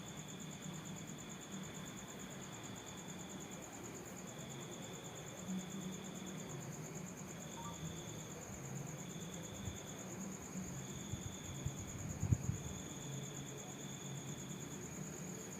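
Insects trilling in stretches a second or two long over a continuous high thin whine, with low soft rubbing and a few light knocks about twelve seconds in.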